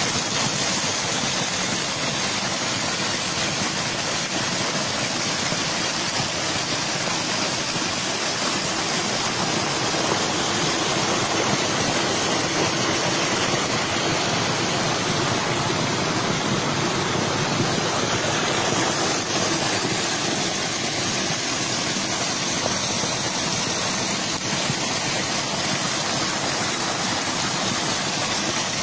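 A small waterfall pouring over a rock lip into a shallow stream pool, splashing steadily.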